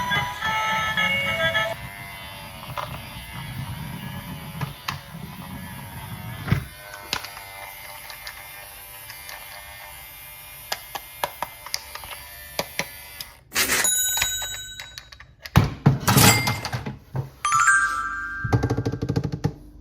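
A short electronic tune that stops about two seconds in, then scattered clicks and knocks of plastic toys being handled, then from about two-thirds through a series of loud thuds and electronic tone sound effects.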